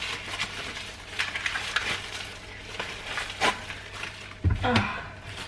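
A thin plastic rubbish bag rustling and crinkling as it is handled and shaken open, with small crackles throughout.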